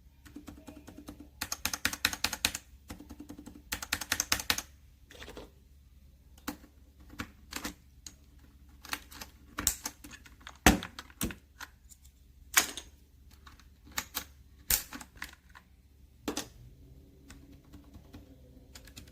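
Typing on a mechanical keyboard fitted with Outemu switches. Two quick runs of keystrokes come first, then single key presses at uneven spacing, a few of them sharper and louder, and a softer run of presses near the end.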